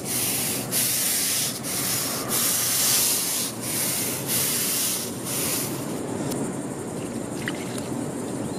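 Stiff-bristled deck brush scrubbing degreaser solution into rough pavement in brisk back-and-forth strokes, a little more than one a second. The scrubbing stops about six seconds in, and a quieter steady hiss follows as rinse water is poured from a jug.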